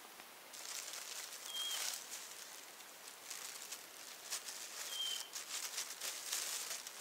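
Rustling of tall grass and plant stems with small crackles as a person moves through them picking fireweed by hand. A bird gives a short high chirp twice, about three and a half seconds apart.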